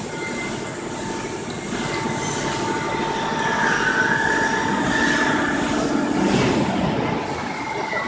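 Cold roll-forming machine running, with steel strip passing through its forming rolls to be shaped into rack upright profiles. It makes a steady mechanical din with thin, steady whining tones over it, and one tone that wavers up and down midway through.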